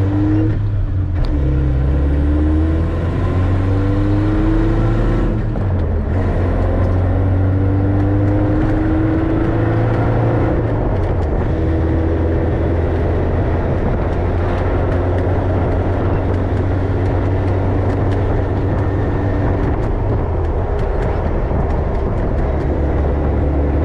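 Suzuki Samurai's four-cylinder engine driving along, revving up through the gears: its pitch climbs, drops at each shift a few times in the first half, then holds more steadily, over road and wind noise.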